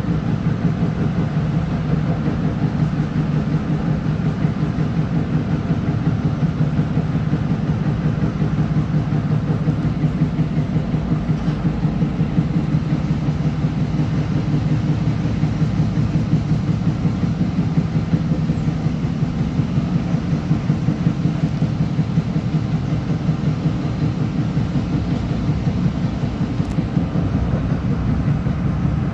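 Long Island Rail Road M3 electric multiple-unit train running, heard from inside the car as a steady low rumble of wheels and motors with a fast, even flutter.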